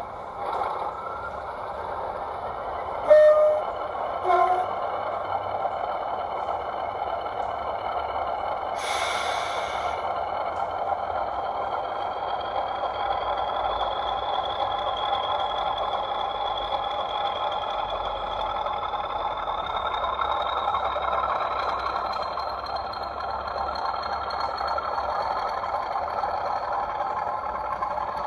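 Model Class 40 diesel locomotive sound from an ESU sound decoder: two short horn toots a few seconds in and a burst of air hiss a little later. The diesel engine runs throughout, with a high turbocharger whistle that slowly rises in pitch through the second half.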